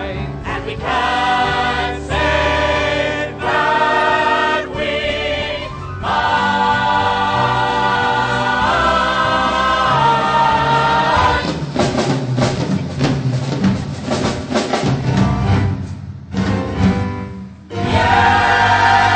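Musical-theatre cast singing together in chorus with accompaniment, on long held notes with vibrato. The sound drops away briefly near the end, then the whole ensemble comes back in loud on a final held chord.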